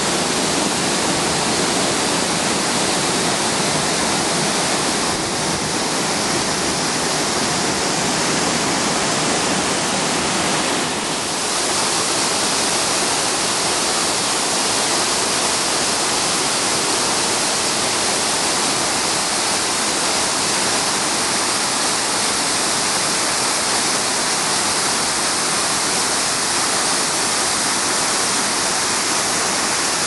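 Forest waterfalls and cascading streams running full after heavy rain: a loud, steady rush of falling and tumbling white water.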